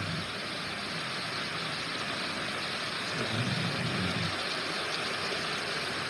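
Floodwater cascading down a flight of stone steps, a steady hiss of rushing, churning water. A low rumble rises under it about three seconds in and fades about a second later.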